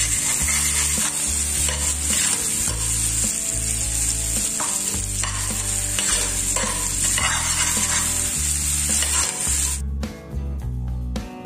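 Egg-and-onion masala frying in hot oil in a frying pan, sizzling steadily while a slotted metal spatula stirs and scrapes it across the pan in repeated strokes. The sizzle cuts off suddenly about ten seconds in.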